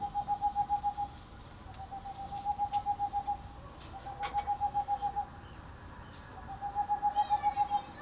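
Tengmalm's (boreal) owl song: four quick series of evenly spaced hoots on one steady pitch, each series about a second long, with short pauses between them. Another bird calls faintly on a higher pitch near the end.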